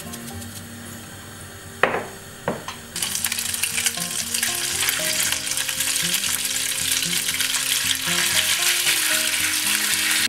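Penne and basil pesto sizzling in a hot pan while being stirred with a wooden spatula. Two sharp knocks come about two seconds in, and the loud sizzle starts about a second later.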